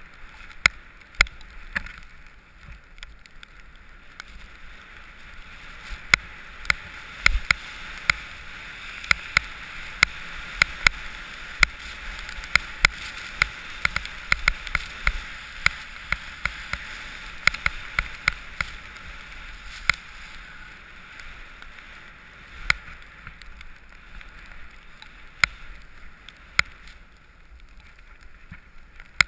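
Skis sliding over snow, a steady scraping hiss that grows heavier through the middle stretch, with frequent sharp clicks and knocks from the skis and gear.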